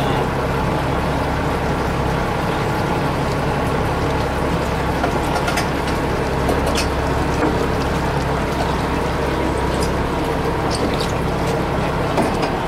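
Fishing boat's engine running steadily at idle, with water washing against the hull and a few light clicks scattered through.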